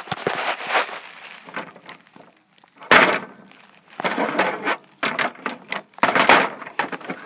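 Plastic wrestling action figures being handled in a toy ring: a series of short knocks and scrapes as they bang against each other and the ring. The loudest comes about three seconds in, with more around four, five and six seconds.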